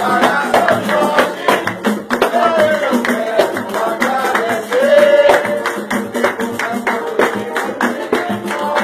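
Live samba played by a group: voices singing together over a pandeiro and a hand drum beating a quick, steady rhythm.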